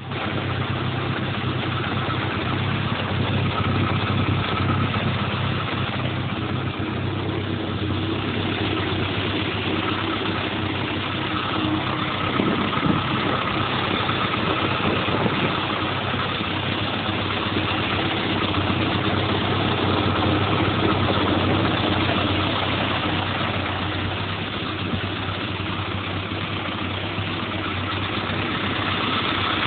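Ferguson tractor engine idling steadily while its hydraulic three-point linkage holds the tractor jacked up on a linkage jack.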